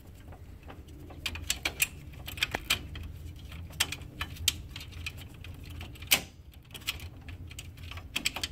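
Irregular small plastic clicks and taps as spring-loaded paper pickup rollers are fitted back onto their mounts in the tray cavity of an HP LaserJet M712 laser printer, with one sharper click about six seconds in.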